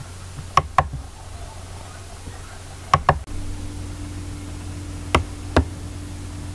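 Light, sharp metallic knocks as the sheet-steel plates of a model steam engine's firebox are fitted by hand onto threaded steel rods: three pairs of quick knocks, a couple of seconds apart.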